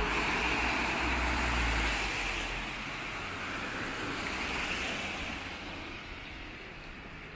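Car traffic on a rain-wet road: the hiss of tyres on wet tarmac, loudest in the first two or three seconds as a car goes by and then slowly fading, with a low rumble underneath.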